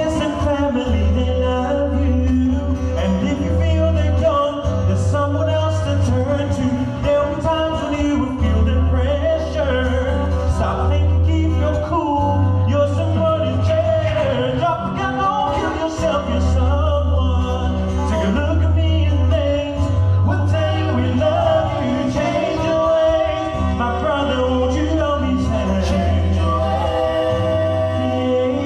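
Two male singers performing live through a PA system over music with a deep, repeating bass line.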